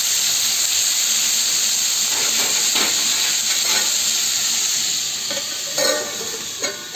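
Bitter gourd, onion and tomato sizzling steadily in hot mustard oil in a kadhai. Shortly before the end a steel lid clanks down onto the pan with a brief metallic ring, and the sizzle turns quieter under the lid.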